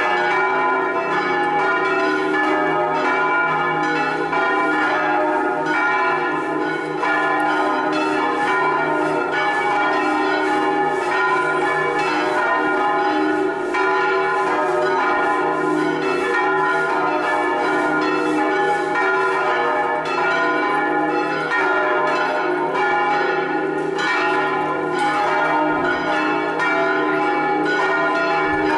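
Five swinging bronze church bells from the cathedral's electrified six-bell ring in E-flat, all but the fourth bell, pealing together in a full solemn 'distesa'. Their strokes overlap densely and ring on without a break.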